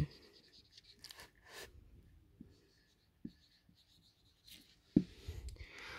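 Felt-tip marker writing on a whiteboard: faint, scratchy pen strokes. A short knock about five seconds in.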